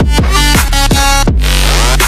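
Loud electronic dance music with a heavy, steady bass and quick falling synth sweeps several times a second.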